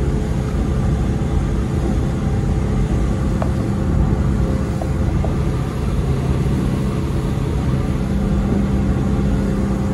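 Motorboat engine running steadily under way, a constant low hum over the rush of wind and water past the open cockpit.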